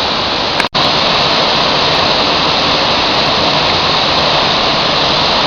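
Waterfall rushing, a loud steady roar of falling water, broken by a split-second gap just under a second in.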